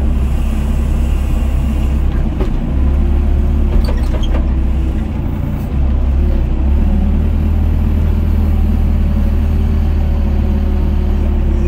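Doosan DX55 excavator's diesel engine running steadily, heard from inside the cab as the hydraulic arm swings and digs. The engine's level steps up a few times under the load of digging and lifting.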